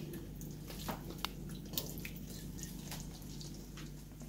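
Beef cooking in a yogurt and onion mixture in a pot, stirred with a wooden spoon: a few scattered, separate wet pops and clicks over a faint steady low hum.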